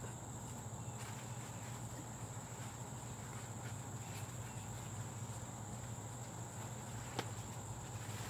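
Faint garden ambience: a steady high-pitched insect drone over a low steady hum, with a single small click about seven seconds in.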